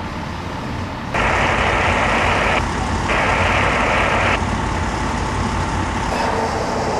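Two loud bursts of hissing, each about a second and a half long, that start and stop abruptly, over the low steady rumble of idling heavy vehicles.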